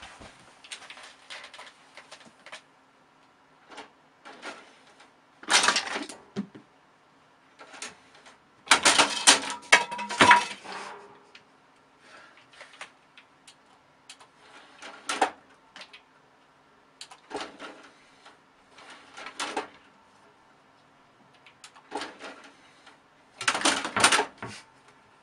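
A kitten's claws scratching and scrabbling at a cloth curtain and the side of a computer case. The noise comes in irregular bursts, loudest about six, nine to ten, and twenty-four seconds in.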